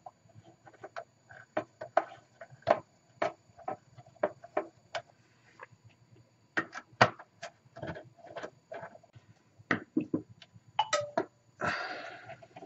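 Screwdriver working screws out of a vintage radio's metal chassis inside its Bakelite cabinet: irregular metallic clicks and ticks as the tip engages and turns the screws, with a short scrape near the end.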